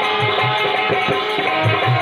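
Instrumental passage of Indian folk devotional music: a hand drum plays a steady rhythm of deep strokes under a sustained melodic instrument line.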